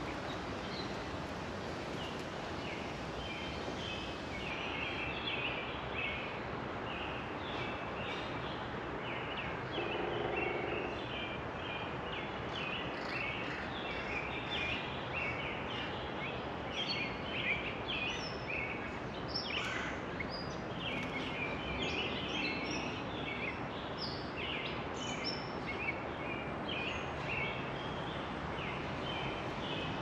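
Wild songbirds chirping, many short high notes in quick succession, over a steady background hiss of outdoor noise. About ten seconds in there is a brief lower-pitched call.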